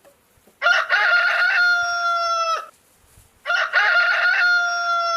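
Rooster crowing twice, cock-a-doodle-doo: each crow starts in short broken notes and ends in a long held note that dips at the very end.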